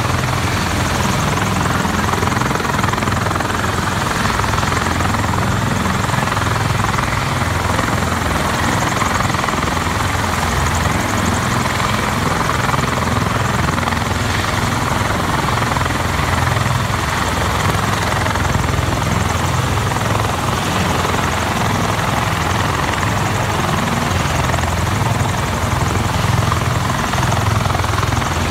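A USMC CH-53E Super Stallion heavy-lift helicopter runs on the ground with its rotors turning, from its three turbine engines. It is loud and unchanging: a deep rotor beat under a broad rush of turbine noise.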